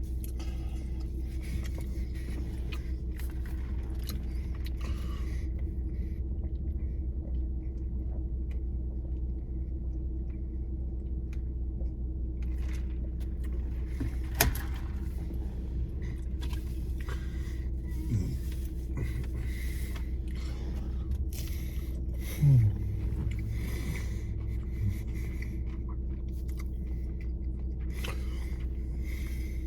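A person eating, with soft mouth and wrapper noises, one sharp click about halfway through and two short low hums of falling pitch later on, over a steady low rumble.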